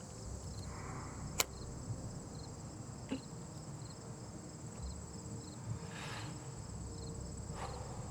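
Crickets chirping steadily: a high continuous trill with quick chirps repeating about three times a second. A single sharp click stands out about a second and a half in.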